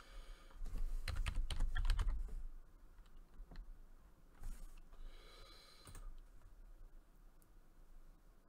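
Computer keyboard and mouse clicks: a quick flurry of keystrokes and clicks about a second in, then a few scattered clicks.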